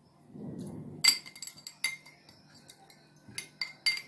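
Glass tumblers clinking as they are handled on the table, several sharp clinks with a short ring, starting about a second in, preceded by a soft rustle.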